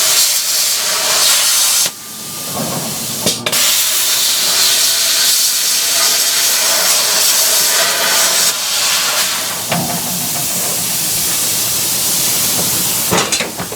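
Pneumatic tool running with a loud, steady hiss of air. It stops about two seconds in, starts again sharply about a second and a half later, and runs a little quieter from about ten seconds in.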